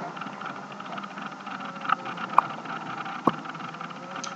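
Steady motor hum, like an engine idling, with a few short light clicks and taps near the middle.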